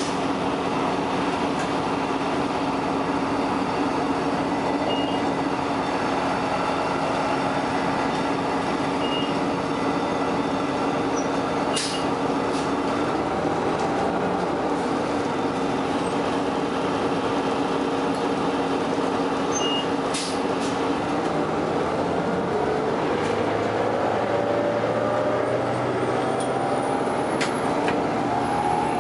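Interior of a 2002 Orion V transit bus under way: its Detroit Diesel Series 50 engine and Voith DIWA 864.3 automatic transmission running with road noise, a steady hum through the first half. Two sharp clicks come about halfway through, and near the end a rising whine as the bus picks up speed.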